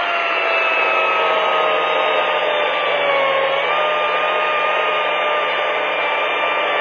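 Battery-powered chainsaw running at full speed and cutting through an oak log, its motor and chain whining steadily. The pitch sags a little under load about three and a half seconds in and again near the end.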